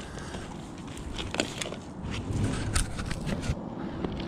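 Crackling, rustling and scraping of a tangled clump of wet sticks, rope and junk pulled up on a fishing magnet as it is handled, with several sharp clicks and a few low knocks.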